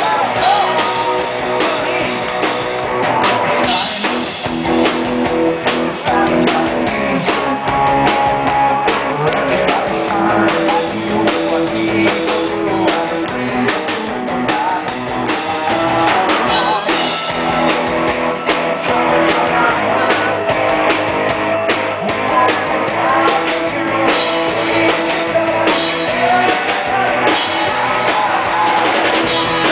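Live rock band playing: electric guitars, drum kit and a singing voice, loud and continuous, recorded from the crowd with the top end cut off.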